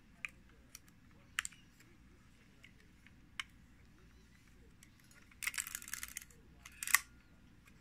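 Small mechanical clicks from handling a Konica C35 camera while loading film: scattered single clicks, a quick run of rapid clicking about five and a half seconds in, then a sharp click near the end.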